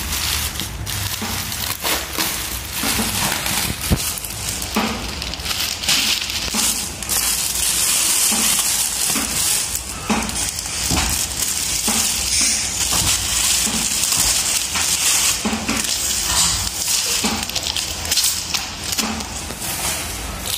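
Clear plastic packaging crinkling as hands handle it: a dense rustle with many small crackles.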